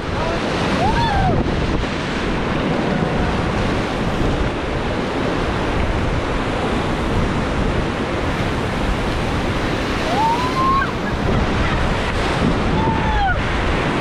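White-water river rapids rushing loudly around an inflatable raft, mixed with wind buffeting the microphone. A few brief voice calls rise above the water about a second in and again near the end.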